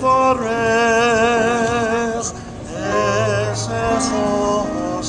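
A man singing long held notes with a wavering vibrato, in two phrases with a short break between them.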